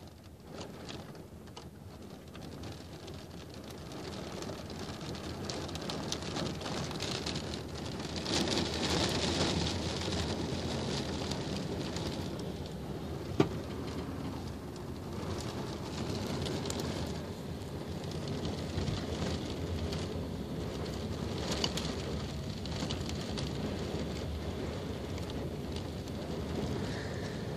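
Rain from a passing rain band hitting a vehicle's windows and body, heard from inside. It builds over the first several seconds to a steady downpour, with one sharp tap about thirteen seconds in.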